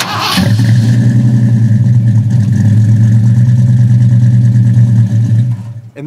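A 1977 pickup truck's engine starting up: a brief burst of cranking, then it catches and runs loud and steady before stopping abruptly near the end.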